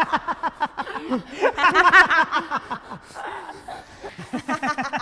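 A woman laughing in quick, repeated bursts, with more laughter around it, loudest about two seconds in.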